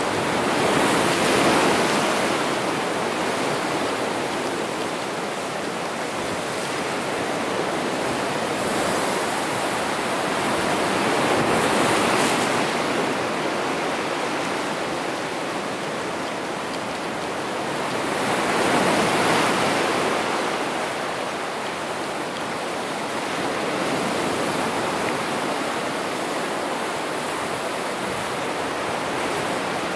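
Ocean surf breaking and washing over rocks: a continuous rush of water that swells louder with each incoming wave, three times most clearly.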